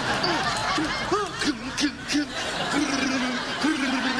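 Studio audience laughing. One voice stands out, first in short quick 'ha' syllables, then in longer drawn-out notes.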